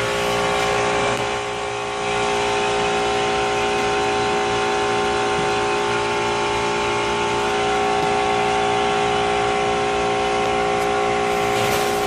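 Trane chiller's compressor running steadily under load: a continuous mechanical hum with several constant tones. It is the unit's bad compressor, running with high back pressure.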